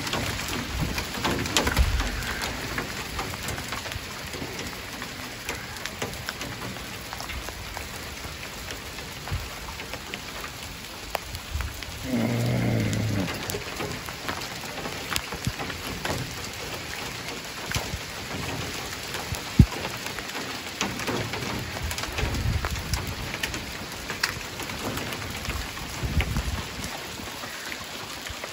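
Hail falling hard: a dense patter of small hailstones striking paving, plastic wheelie bins and plant pots, with a few low rumbles and one sharp tick about two-thirds of the way through.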